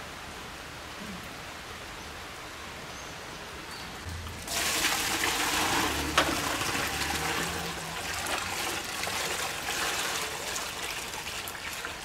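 Water poured from a plastic bucket into a plastic tub, starting suddenly about four and a half seconds in and splashing loudly, with a sharp knock soon after it begins, then running on a little less loudly.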